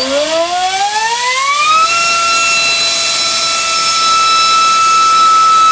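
Turnigy 2836 3200kV brushless EDF motor spinning a 4.1×4.1 propeller on a 4-cell battery: a loud whine that rises steeply in pitch for about two seconds as the motor spools up, then holds steady at high speed while it pulls about a kilogram of thrust.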